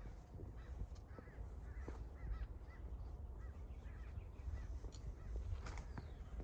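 Faint bird calls: a run of short, repeated arched calls over a low background rumble, thinning out past the middle.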